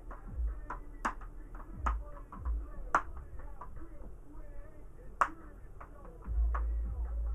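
Plastic clips of a Gateway laptop's screen bezel snapping loose as it is pried off with a plastic pry tool: a few sharp clicks spread a second or two apart. A low rumble follows near the end.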